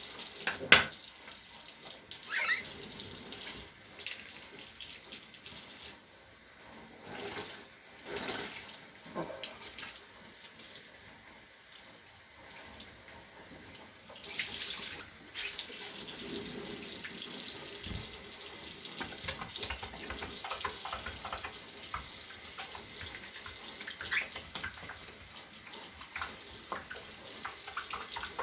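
Water from a tap running into a sink during cleaning, stop-start at first and then steady, with a few short squeaks. A sharp knock comes about a second in.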